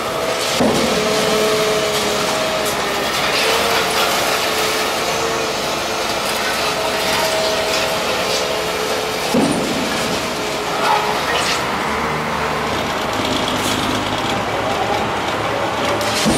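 Volvo EW160B wheeled excavator's diesel engine running as it moves across the rubble, with steady metallic squealing tones that hold and shift in pitch and a few sharp clanks.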